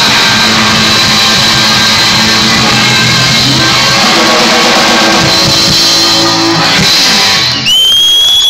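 Live rock band playing loudly, led by electric guitar. Near the end the music cuts off and a single high wavering tone takes over.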